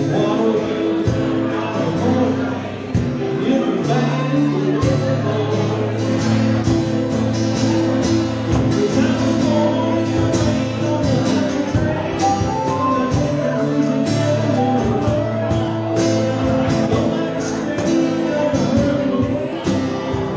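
Small acoustic band playing live: acoustic guitar, harmonica and cajon, with a steady percussive beat under held low notes and a melody line.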